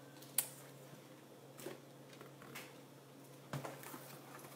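Quiet room tone with a low steady hum, broken by a few light clicks and knocks, the sharpest about half a second in and another near the end.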